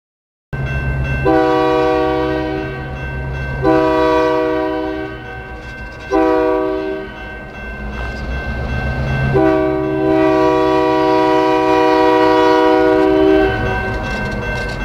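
Canadian Pacific EMD GP38AC locomotive's air horn sounding four blasts, long, long, short, long, the signal for a grade crossing, over the diesel engine running.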